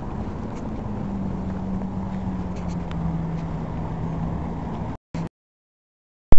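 Winnebago Superchief motorhome's engine idling with a steady hum, its pitch sagging slightly a couple of seconds in. The sound cuts off about five seconds in, and near the end there is a loud knock as the camera is grabbed.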